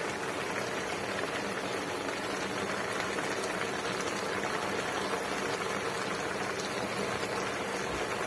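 Broth boiling in a wok of green mussels, a steady bubbling and hissing.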